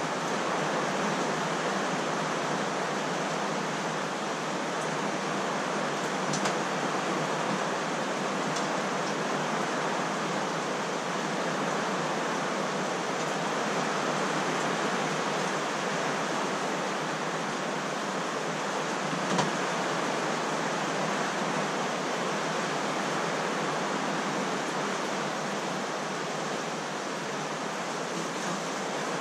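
Heavy typhoon rain falling steadily: an even, unbroken rushing hiss.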